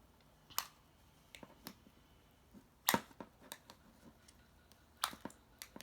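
Light clicks and taps of plastic Play-Doh toy pieces being handled, eight or so scattered knocks, the loudest about three seconds in.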